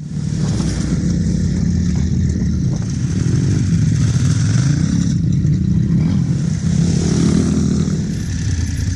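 Big-bore adventure motorcycle engine running under way on a dirt track, its pitch rising and falling a little with the throttle, with steady wind rush over it.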